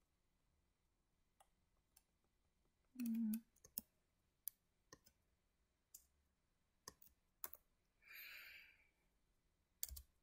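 Computer mouse clicking, a dozen or so sharp clicks spread irregularly, as the slideshow computer hangs and fails to advance. A brief low hum of voice about three seconds in and a short breathy hiss about eight seconds in.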